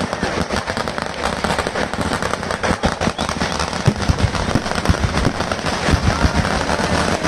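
Vedikkettu temple-festival fireworks going off in a rapid, unbroken barrage of firecracker bangs and crackling, with shells bursting in showers of sparks overhead.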